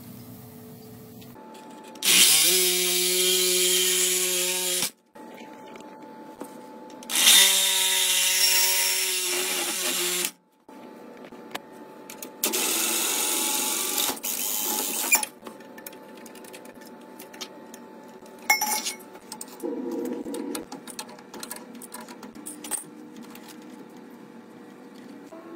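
A cordless power tool's motor running in three bursts of about three seconds each, worked on copper pipe, each run stopping abruptly. Scattered clicks and knocks of handling the pipe and fittings follow.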